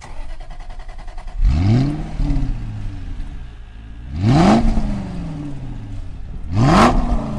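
A car engine idling and blipped three times, each rev climbing quickly in pitch and then dropping back to idle.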